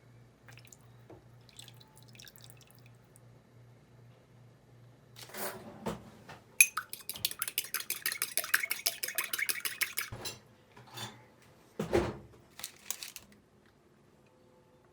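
Kitchen work: a utensil clicking rapidly and evenly against a bowl for about three seconds, about eight strokes a second, as in whisking, with a clatter before it and a couple of knocks after.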